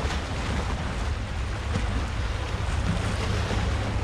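Sea waves and wind on the shore, with a steady low rumble of wind buffeting the microphone.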